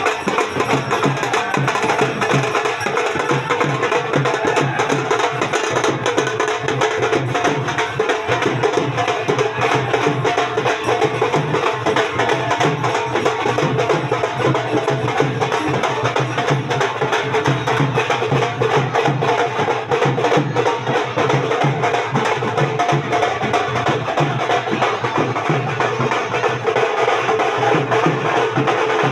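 Indian song playing, driven by fast, busy clicking percussion.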